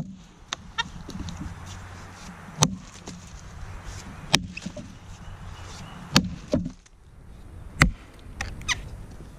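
Vintage Kelly True Temper Wood Slasher boy's axe, a Dayton pattern head of 2.25 pounds, chopping into a downed log as it is bucked. There are about five heavy blows, one every one and a half to two seconds, with lighter knocks between them.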